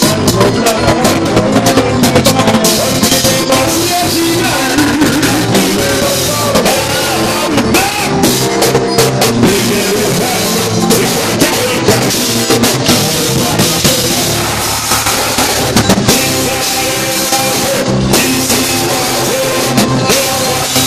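Live band playing loudly, with drum kit, electric guitar and congas driving a steady beat, and a male singer singing into a microphone over it.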